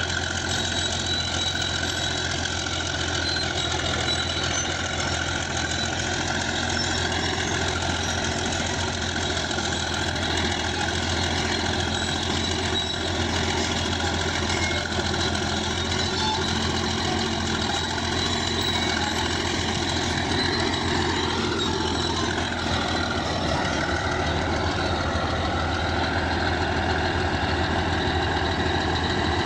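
Bulldozer's diesel engine running steadily, a constant low drone with no change in speed.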